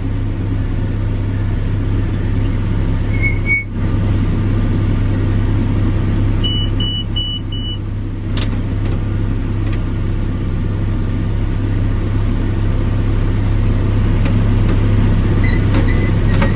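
Tractor running steadily under load while pulling a hay baler, with four quick electronic beeps about six and a half seconds in and a sharp click shortly after.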